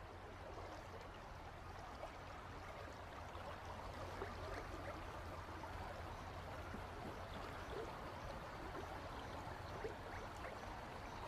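Faint flowing river water with small splashes and trickles, over a low steady hum.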